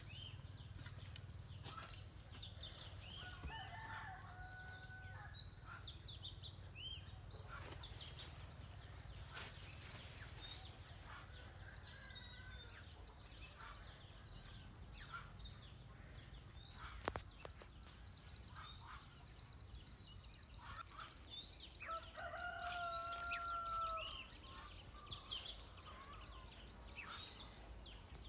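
Free-range chickens calling, with a rooster crowing twice: once a few seconds in, and more loudly near the end. Many short, high chirps and clucks run between the crows.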